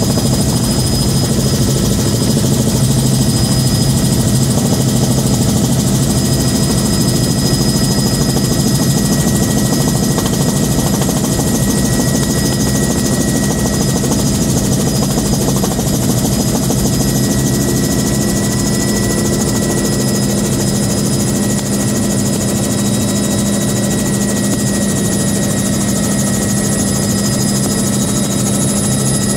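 Bell 206B3 JetRanger helicopter in flight, heard from inside the cabin with the doors removed: the steady beat of the rotor and transmission underneath a constant high turbine whine from its Allison 250 turboshaft, with loud wind rush, as it flies the approach to land.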